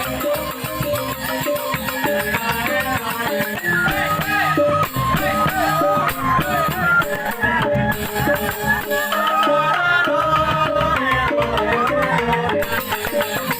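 Joged bumbung music: a Balinese bamboo gamelan of struck bamboo xylophones with drum and rattling percussion, playing a fast, busy pattern without a break.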